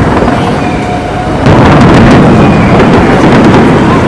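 Fireworks display going off in rapid succession: a dense, continuous rumble of overlapping bangs, getting louder about a second and a half in.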